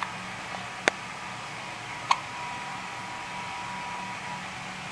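Two short, sharp hiccups about a second apart, over a faint steady hum.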